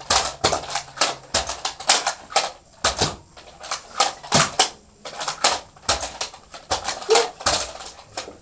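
Toy Nerf blasters clacking as they are primed and fired in quick succession during a triple-shot round: a string of irregular sharp clicks, about two or three a second.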